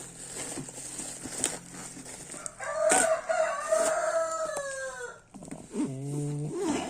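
Rooster crowing once, a long call that falls in pitch at its end, followed by a shorter, lower call; light clicks and rustles of handling underneath.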